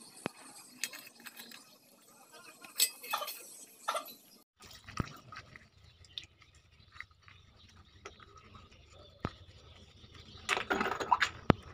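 Short scrapes and clicks of a metal blade working against an empty spray-paint can. Then the can's round metal ends are scrubbed with a soapy cloth and scouring pad: wet rubbing with light metal clinks, growing louder near the end with one sharp clink.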